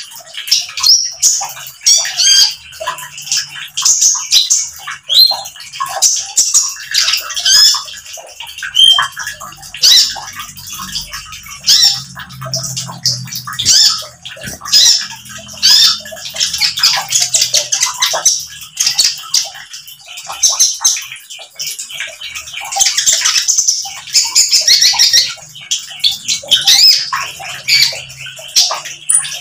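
Caged konin bird singing in rapid, dense runs of sharp chirps and whistles, its 'nembak' (shooting) song, over trickling water.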